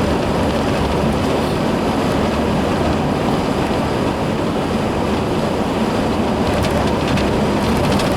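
Steady road noise inside a moving vehicle's cabin.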